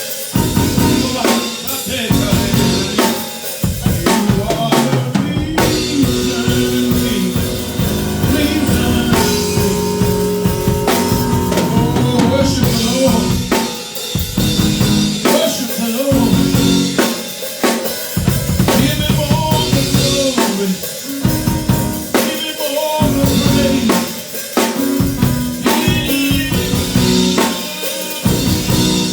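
Band music driven by a full drum kit, with kick drum, snare and rimshot hits in a steady beat under sustained pitched instruments.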